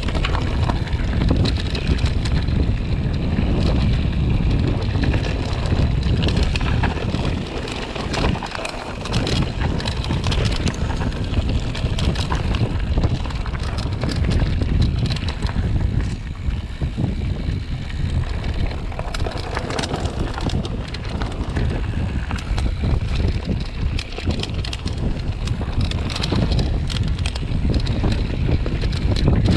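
Wind buffeting the microphone over a steady low rumble, with many short clicks and rattles throughout, typical of a camera carried on a fast descent.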